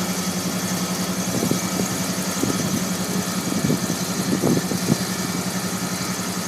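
The 1963 Lincoln Continental's hydraulic power convertible top in motion: a steady low hum with a few light creaks and knocks scattered through as the top frame moves.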